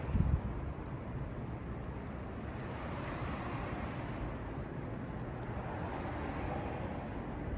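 Steady outdoor background noise that swells and fades gently twice, with a short low thump at the very start.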